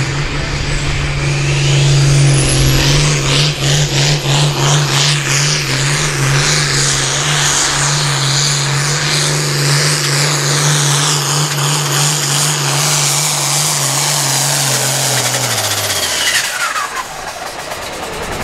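International Harvester 1066 hot farm pulling tractor's turbocharged diesel held at full throttle while dragging a weight-transfer sled, its turbo whine rising in the first couple of seconds. About sixteen seconds in the throttle is cut and the engine and turbo wind down together.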